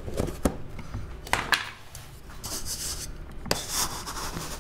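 A plastic lid snapped and pried off a plastic sugar tub with a few sharp clicks, then a plastic measuring cup scraping and scooping through granulated sugar with a gritty rustle.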